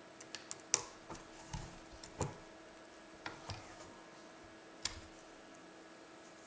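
Hand press machine with a snap button die being worked to set a snap: a series of light clicks and knocks over about five seconds as the handle is pushed down and let back up.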